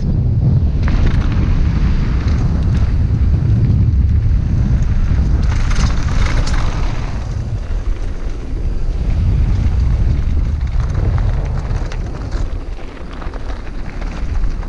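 Wind rushing over a helmet-mounted action camera's microphone during a fast mountain-bike descent, with the tyres crunching and clattering over loose gravel and rocks. A harsher crunch of stones comes about six seconds in, and the rush eases near the end as the bike slows onto flat gravel.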